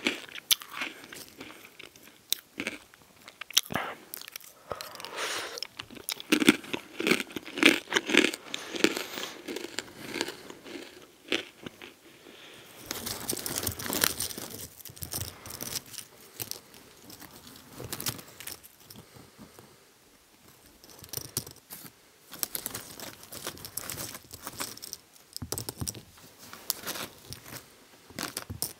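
Hard pretzels being bitten and chewed, sharp cracking crunches coming thick and fast for the first twelve seconds or so. Then the crinkly snack bag rustles and pretzels click against one another as a hand picks through them.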